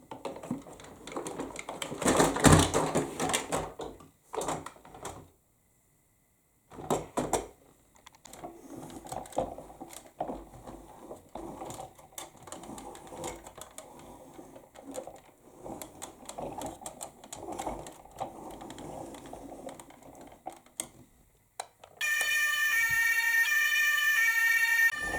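Small toy cars clicking and rattling against a hard surface. Near the end a toy emergency vehicle's electronic siren switches on, louder, with tones that step up and down in pitch.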